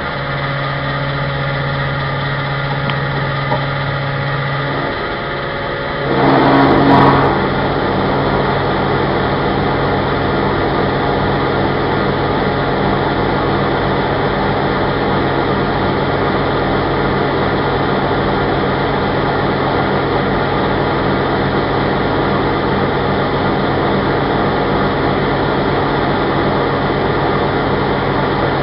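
Petrol pump running while fuel is dispensed into a car's tank, a steady mechanical hum. It swells louder about six seconds in, then settles into a steady, denser rush of pump and flowing fuel.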